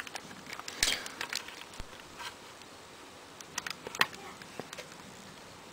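Faint handling noise: fingers pressing and folding the edges of a stick-on skin over a PSP handheld console, with scattered light clicks and short rubbing sounds.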